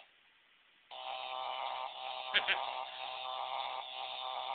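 Electronic buzzer of a Shocking Duel shock toy sounding a steady buzzing tone that starts about a second in. Two quick clicks come about halfway through.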